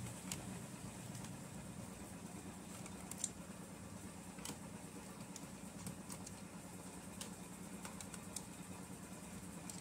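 Faint, scattered small clicks and ticks of a screwdriver working the screws out of a Samsung NP300E4X laptop's plastic bottom case, over a steady low hum.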